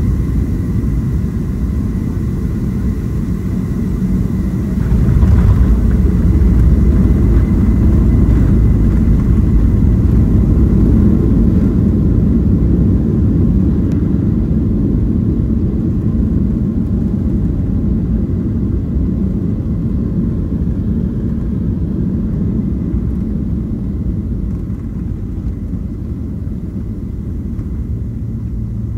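Inside the cabin of a Boeing 737-800, its CFM56 jet engines and airflow make a steady low rumble with a faint whine during the landing roll. The rumble grows louder about five seconds in, typical of reverse thrust just after touchdown, then slowly dies down as the jet slows on the runway.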